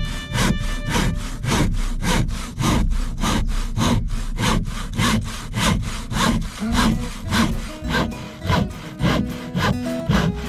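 A hand saw cutting through wood in quick, even strokes, about three a second, with faint background music underneath.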